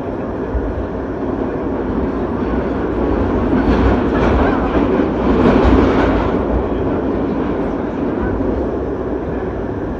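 New York City subway express train running at speed through the tunnel, with steady wheel-and-track noise that swells louder around the middle and eases off again.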